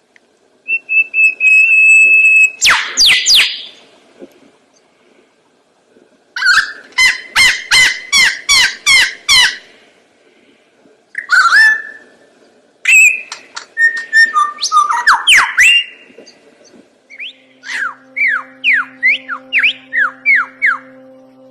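A bird, billed as having a thousand different calls, gives a varied series of loud whistled phrases. These include a held note, sliding notes and fast runs of repeated notes, in four or five bursts with short pauses between them. A faint steady hum comes in near the end.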